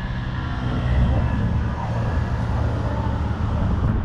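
Road traffic: a motor vehicle's engine running with a steady low rumble over city street noise, loudest about a second in.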